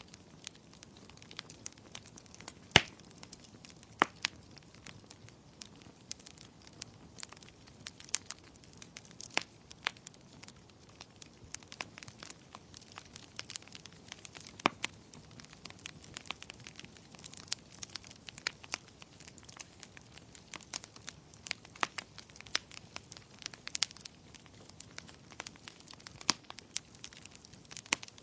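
Wood fire crackling in a fireplace: irregular sharp pops and snaps over a faint steady hiss, with one loud pop a little under three seconds in.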